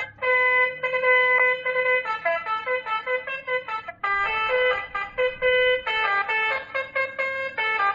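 60-watt Basuri telolet horn module playing its electronic horn tunes: loud pitched horn notes held and stepping up and down in short melodic phrases, with a brief break about four seconds in as one phrase ends and another begins.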